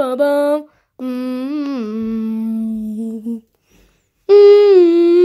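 A child's voice humming drawn-out mouth sound effects that imitate a spaceship's engine. There is a short burst at the start and a long low drone that rises briefly and then drops. A louder, higher drone starts near the end.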